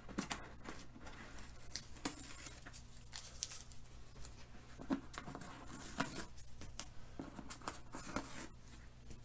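Strips of painter's tape being peeled off a fabric lampshade seam: quiet, irregular short peeling and crinkling noises with scattered light ticks as the tape comes away and is handled.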